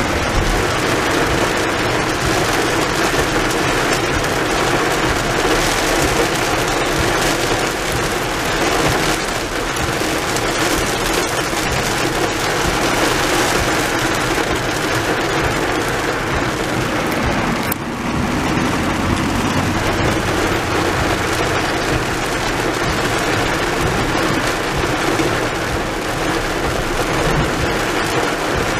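Heavy rain drumming steadily on a moving car's roof and windshield, heard from inside the cabin.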